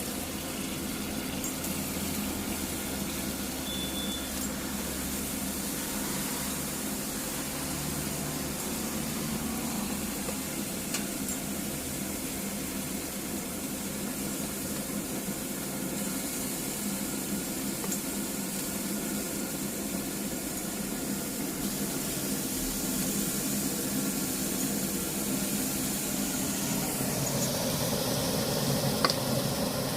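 Pellet grill running with a steady mechanical hum under an even hiss of chicken sizzling on the grates, with a single click near the end.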